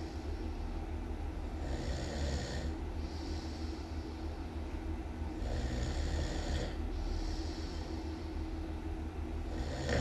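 A person snoring really loud in slow, regular breaths, about one every four seconds. Each snore comes in two rasping parts with a short gap between them.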